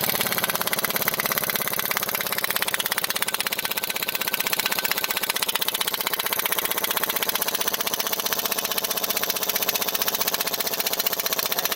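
Pneumatic impact wrench hammering without a break on a seized plow standard bolt, a fast, even rattle. The bolt does not break loose, so a bigger impact wrench is called for.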